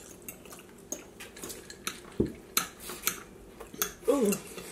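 Forks clicking and scraping on plates at a meal, a scatter of sharp separate clicks, with a dull thump about two seconds in and a short vocal sound about four seconds in.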